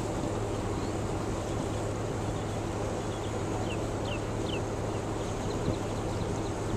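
A boat's engine running steadily with a low hum, under wind and water noise. A few short, high, falling chirps come about three and a half to four and a half seconds in.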